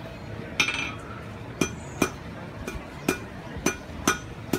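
Blacksmith's hand hammer striking hot iron on an anvil, each blow with a bright metallic ring. One blow comes about half a second in, then steady blows about twice a second.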